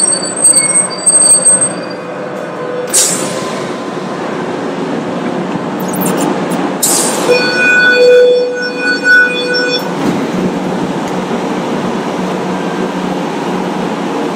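Tram running on street rails, heard from inside the car: a steady rumble of wheels on track, with high-pitched wheel squeal in the first two seconds and again, louder and in several tones, from about seven to ten seconds in. Two brief hiss-like noises come about three and seven seconds in.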